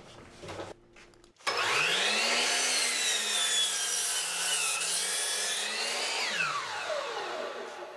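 Electric miter saw starting up about a second and a half in, its motor whine rising quickly to speed, then cutting through 3/4-inch plywood with a dip in pitch under load. Near the end the saw is switched off and the whine falls away as the blade spins down.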